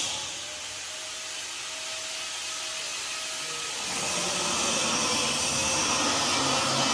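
Angle grinder cutting steel: a steady hissing whine. It is lighter for the first few seconds and grows louder again about four seconds in as the disc bites into the metal.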